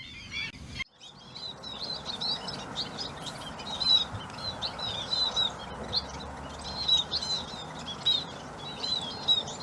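Scaly-breasted munias calling: many short, high chirps, one after another, over a steady background hiss.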